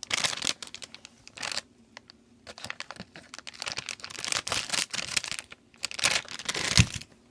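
Plastic blind bag crinkling and rustling in the hands as it is cut and torn open, with irregular crackles and clicks throughout. A single thump near the end.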